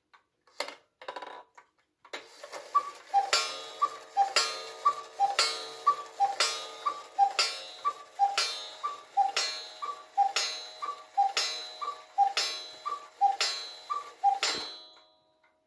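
Victoria Arad cuckoo clock striking the hour: after a few clicks of the mechanism, twelve two-note cuckoo calls, high then low, about one a second, each with a strike on the clock's gong ringing under it. The bellows' two notes are a bit out of tune.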